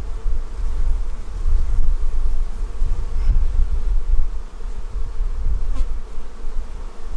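Honeybees from an open hive buzzing steadily as a dense crowd, over an uneven low rumble.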